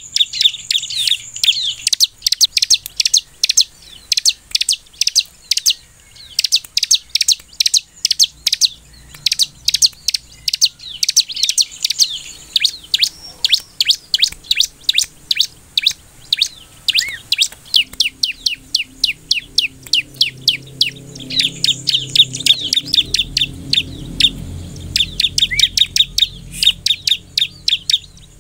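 Bar-winged prinia (ciblek) singing: fast runs of sharp, high chip notes, several a second, broken by short pauses about six seconds in and again about seventeen seconds in.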